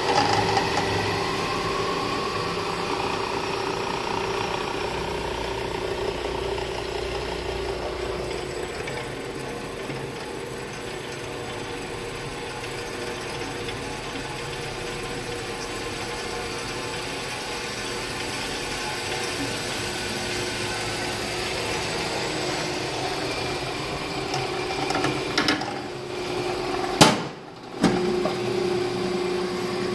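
Ellis 3000 band saw running steadily, its three-phase motor and belt drive humming while the variable-speed pulley is being adjusted. A sharp click sounds about three seconds before the end.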